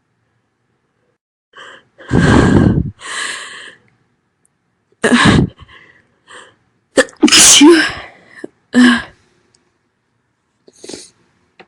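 A woman sneezing loudly, about four sharp sneezes in a row spread over several seconds, with softer short sounds between them and a faint one near the end.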